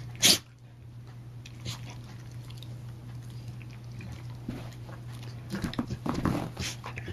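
Two dogs play-fighting, mouthing and biting at each other with scuffling and soft clicks. There is a sharp, loud sound about a third of a second in and a busier burst of scuffling around six seconds.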